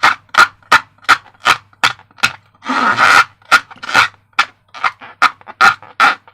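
Slime being squeezed and squished by hand, a string of short squelches about three a second, with one longer squelch about three seconds in.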